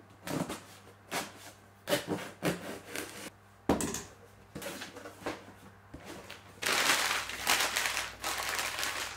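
A knife slitting the tape on a cardboard box and the flaps being pulled open, a run of short scrapes and knocks. Near the end, brown packing paper crinkles loudly and continuously as it is pulled out of the box.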